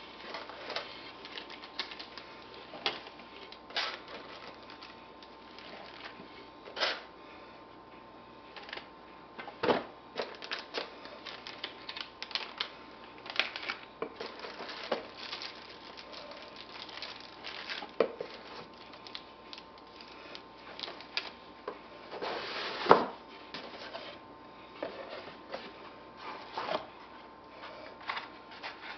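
Camera-box packaging being handled: irregular rustling and crinkling of cardboard and plastic bags, with light clicks and taps, and a louder burst of rustling about three-quarters of the way through.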